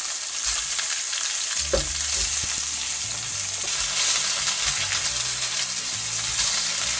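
Japanese sea bass fillets sizzling steadily in butter and oil in a stainless steel frying pan. A spatula knocks and scrapes a few times against the pan as the fillets are turned over.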